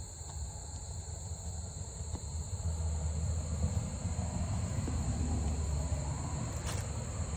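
Steady chirring of crickets, with a low rumble that swells a few seconds in and eases off near the end, and a faint click or two.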